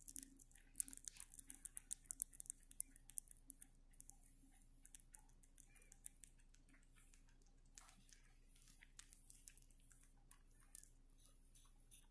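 A rabbit chewing a piece of banana close to the microphone: quick, soft, wet clicks of its mouth and teeth, thick for the first few seconds, then thinning out into scattered clicks.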